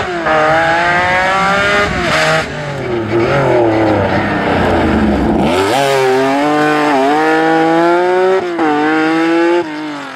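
Rally car engine at full throttle, accelerating hard through a series of gear changes: the pitch climbs and drops sharply at each shift, about half a dozen times. The sound fades near the end as the car moves off.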